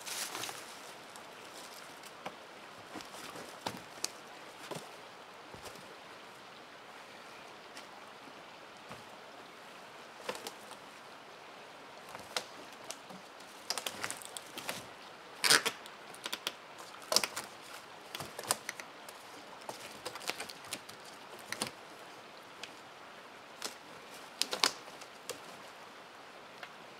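Scattered wooden knocks and clicks of dead poles and sticks being set upright against a log shelter wall, sparse at first and coming in clusters in the second half.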